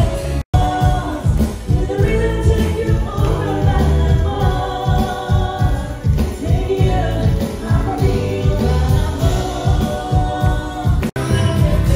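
Live pop band playing: a woman singing lead into a microphone over drums, bass guitar and keyboard, with a steady beat. The sound drops out for an instant twice, about half a second in and near the end, at edit cuts.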